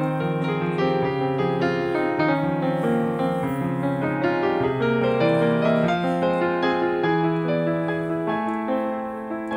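Background piano music, a steady run of notes with a low bass line underneath.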